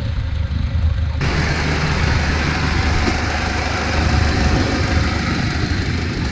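Engine of a small tracked rice-hauling carrier running steadily with a low hum, like idling. About a second in, the sound changes abruptly and a broad hiss is added over the hum.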